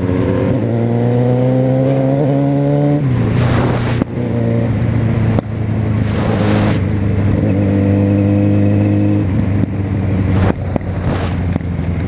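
Motorcycle engine heard from the rider's seat, rising in pitch as it accelerates, then dropping sharply about three seconds in at a gear change and running steadily at road speed. Its pitch falls again near the end as it slows. Several short rushes of noise come and go over the engine.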